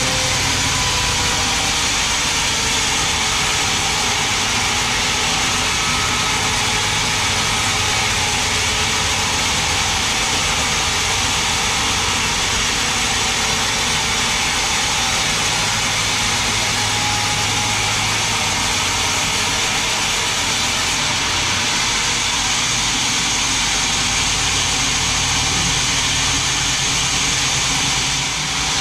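Vertical band sawmill running steadily, its blade ripping lengthwise through a large mahogany log to cut boards: a loud, even mechanical noise with a low motor hum beneath it.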